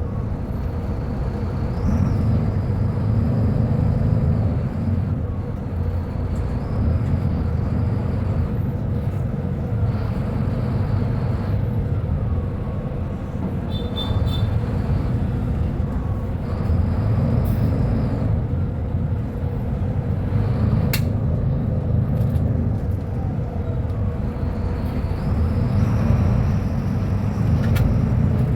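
Mercedes-Benz O500U city bus engine with a ZF Ecolife automatic gearbox running under way, its rumble rising and falling about four times as the bus pulls and eases off. A high whine comes in with each pull. There are a few short high beeps about halfway through and a sharp click later on.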